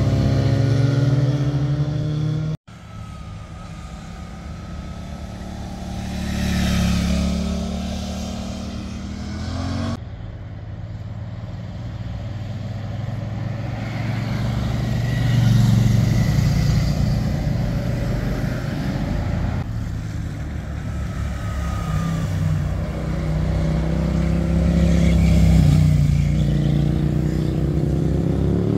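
Motorcycle engines as several bikes pass in turn through a tight bend, each swelling as it nears, the pitch dropping and rising as the rider slows and accelerates away. The sound breaks off abruptly a few times, once with a brief dropout.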